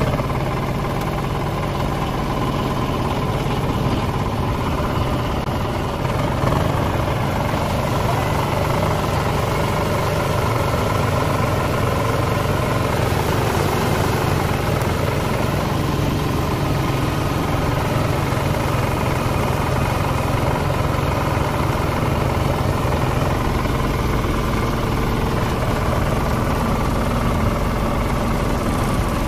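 An engine running steadily, with water gushing from a hose into a plastic sprayer tank.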